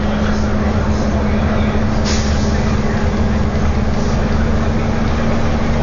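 City bus running steadily at expressway speed, heard from inside the cabin: a continuous engine and road drone with a steady low hum, and a short hiss about two seconds in.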